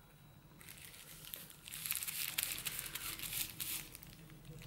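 Thin plastic gloves crinkling and rustling against the hair while hair dye is squeezed from an applicator bottle onto the roots. The sound is quiet and gets busier about two seconds in.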